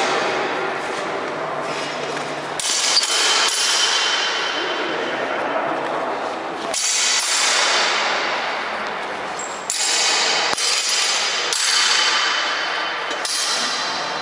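Steel longswords clashing several times, each clash ringing and dying away in a large, echoing hall.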